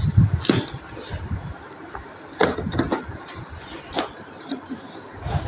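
Cardboard box being opened by hand, its flaps pulled and torn: a few sharp rips and crinkles, with low knocks against the table near the start.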